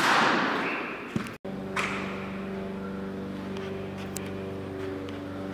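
A cricket bat striking a weighted training ball with a sharp crack right at the start, ringing out in a large indoor net hall. About a second and a half in, the sound cuts off abruptly and gives way to background music with held notes.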